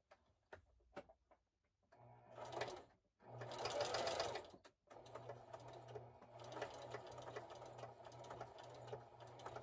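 Singer Heavy Duty 4452 sewing machine doing a zigzag stitch over a frayed fabric edge. A couple of clicks come first. The machine then runs in short bursts about two and three seconds in, and runs steadily from about five seconds in.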